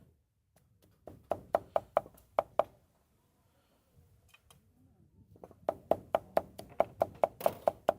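Cleaver chopping meat on a wooden board in quick strokes, about five a second. A run of about a second and a half comes first, then a pause, then a longer run starting about five and a half seconds in.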